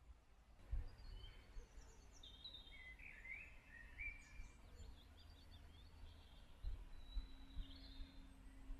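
Faint birdsong from small woodland birds: scattered short chirps, trills and whistles. Under it runs a low rumble with a couple of brief bumps, about a second in and again near the end.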